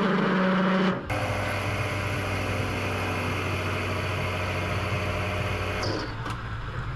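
Metal lathe running with a steady motor hum while a drill bit in the tailstock chuck bores into a black plastic part held in the spindle chuck; the hum stops near the end as the lathe is switched off. A louder, different sound fills the first second and cuts off abruptly.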